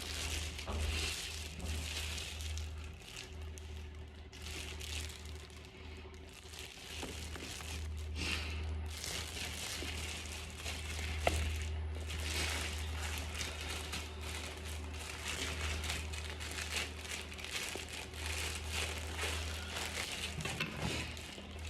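Packaging crinkling and rustling in irregular bursts as it is handled, with a steady low hum underneath and one sharp click about eleven seconds in.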